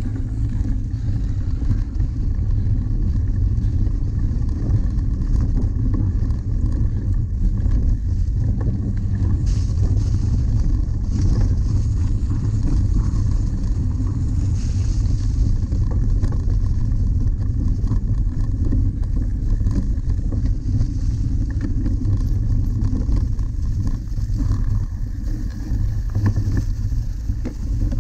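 Steady low rumble of a cyclocross bike being ridden over rough dirt and grass: wind buffeting the camera microphone, with the tyres and bike rattling over bumps.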